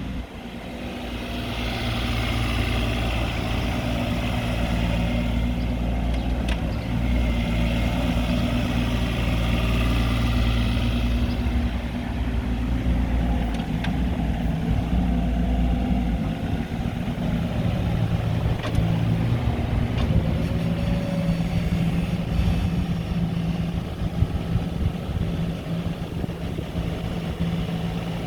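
The Yanmar diesel engine of a CAT 302.7 mini excavator running steadily, with its note shifting about 16 seconds in.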